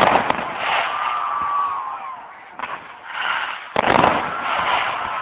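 Fireworks display: two loud shell bursts about four seconds apart, each followed by crackling, with thin whistling tones in between.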